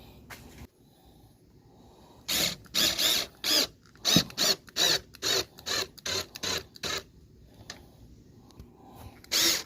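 Plastic air-filter box lid being pressed down and its clips snapped shut, a quick series of about a dozen short plastic scrapes and clicks, bunched between about two and seven seconds in and again near the end.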